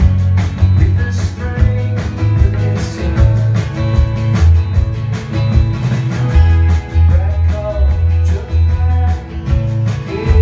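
Folk-rock band playing live: strummed acoustic guitar, electric guitar, bass guitar and drums with a steady beat.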